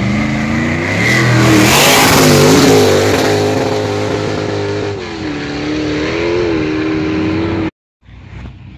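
A hill-climb race car accelerating past on a gravel road. Its engine revs up and down, with a rush of noise as it passes about two seconds in. It keeps revving, its pitch rising and falling, as it climbs away. The sound cuts off abruptly near the end.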